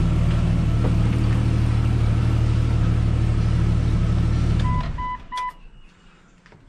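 1998 Jeep Cherokee XJ's warm 4.0-litre inline-six idling steadily, then switched off with the key about three-quarters of the way in, running down and stopping abruptly. Three short electronic beeps follow right after it dies.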